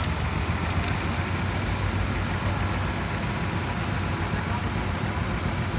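Farm tractor engine running steadily while hitched to a weight-transfer pulling sled, a steady low engine note with no revving.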